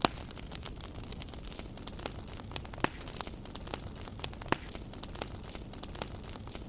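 Wood campfire crackling: irregular sharp pops and snaps, the loudest right at the start, over a steady low background noise.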